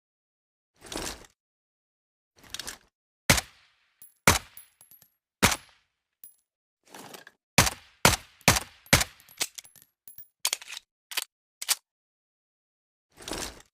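Suppressed M1911 pistol sound effect: a series of sharp, separate shots and clicks with dead silence between them, including a quick string of four about eight to nine seconds in.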